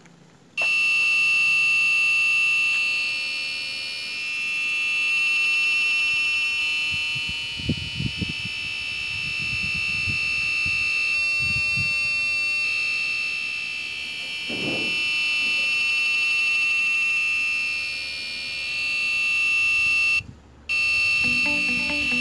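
Piezo buzzer of an Arduino ultrasonic distance alarm giving a continuous high-pitched buzz that swells and fades slowly. It cuts out briefly near the end, then resumes.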